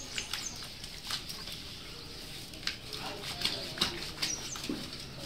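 Wet splashing and patting during a Doberman puppy's bath: hands handling its soaked coat, and water and paws on a wet concrete floor, as scattered short clicks and splashes.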